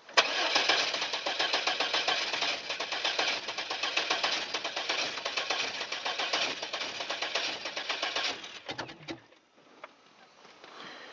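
GMC Safari van's engine being cranked over by the starter, a fast, even chugging for about eight seconds that stops without the engine catching. It is a cold-weather no-start, tried on a new distributor cap and rotor with freshly dried spark plug wires.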